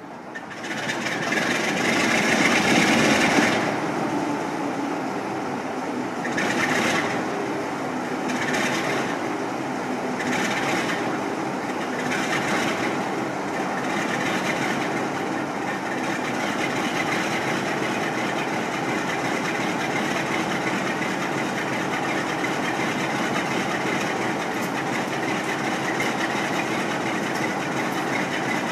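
Class 47 diesel locomotive's Sulzer twelve-cylinder engine starting up through a newly fitted exhaust silencer, loudest two to three seconds in. A few brief hissing surges follow about two seconds apart, then the engine settles into a steady idle.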